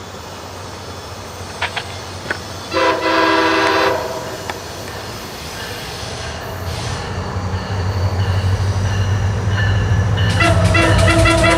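MARC commuter train's horn sounding a short chord of several tones about three seconds in. The train's rumble then builds as it approaches, and near the end the horn sounds again over the rapid clatter of wheels.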